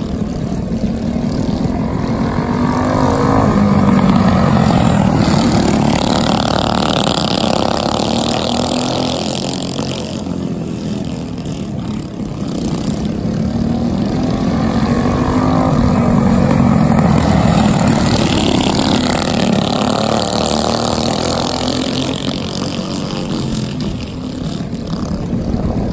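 Several small racing-kart engines running hard around a dirt oval. The sound swells loud twice, about twelve seconds apart, as the pack passes close, and fades as it goes down the far side.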